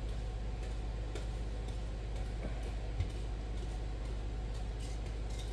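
Faint ticks and scrapes of a utensil stirring thick brownie batter in a plastic mixing bowl, with one sharper click about three seconds in, over a steady low hum.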